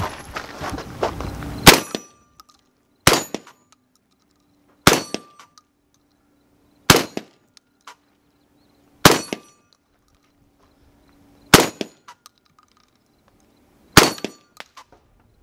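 Seven single rifle shots at an unhurried pace, spaced about one and a half to two and a half seconds apart. Each shot is followed a fraction of a second later by the clang of a distant steel target being hit.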